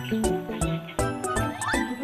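Background music with a steady beat, about two beats a second, under a bouncy melody with some sliding notes.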